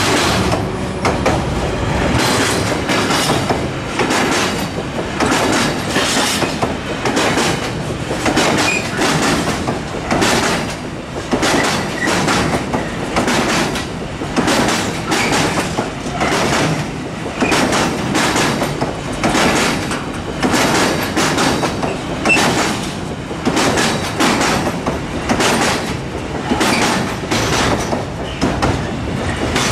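A freight train of loaded container flat wagons rolling past at speed. The wheels clack over the rail joints in a steady, repeating rhythm over a continuous rumble of the running gear.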